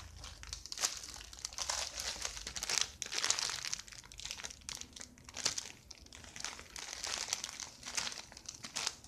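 Clear plastic packaging bags around squishy toys crinkling irregularly as they are handled.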